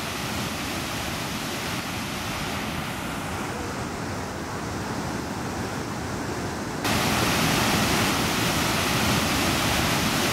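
Water pouring over a low dam spillway, a steady rushing noise. About seven seconds in it cuts abruptly to a louder, brighter steady rush.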